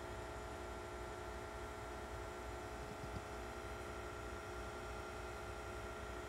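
Steady low hum with faint hiss and a few constant tones: room tone, broken once by a small tick about three seconds in.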